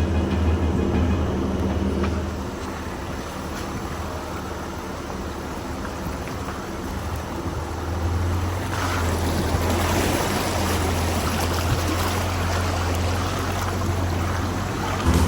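Jeep Gladiator engine running slowly in four-wheel-drive low while the truck fords a rushing creek, with the water splashing and rushing around it. The water noise grows louder about eight seconds in.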